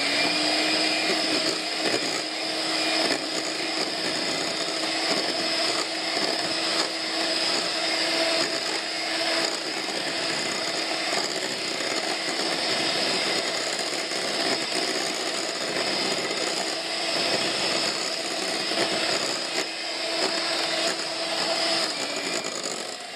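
KitchenWorks electric hand mixer running steadily, its twin beaters whisking a thin cream-and-milk mixture in a glass bowl. The level drops a little near the end.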